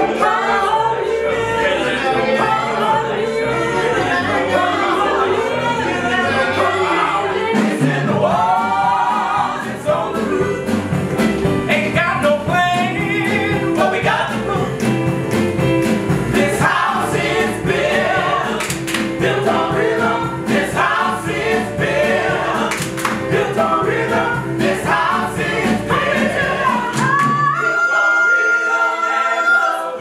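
Live gospel-blues song performed by a lead female singer with a group of backing singers over instrumental accompaniment with a steady beat. Near the end the accompaniment drops out and a single long high note is held.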